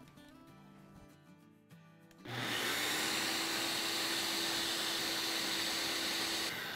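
Ninja Auto-iQ blender with its small grinding cup, grinding fennel seeds and sugar into powder. The motor starts about two seconds in, runs at a steady high whir for about four seconds, and stops shortly before the end.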